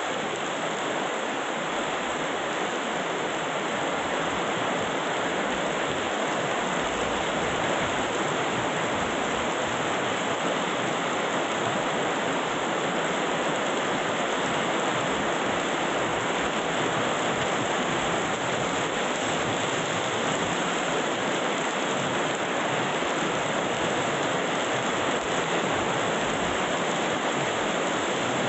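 Heavy rain falling steadily, an even hiss and patter of downpour with no letup.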